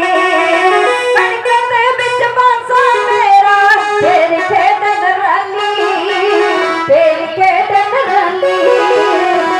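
Women's voices singing a Punjabi devotional song over a PA system, with small hourglass dhadd drums played along. The notes are long and wavering.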